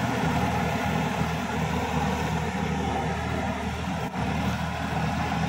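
Sonalika DI-50 RX tractor's diesel engine running steadily under load as it pulls a puddling implement through a flooded paddy field.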